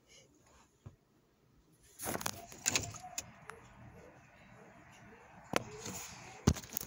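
Rustling and scraping from a phone being handled, fingers rubbing near its microphone, starting about two seconds in, with a few sharp knocks, the loudest two near the end.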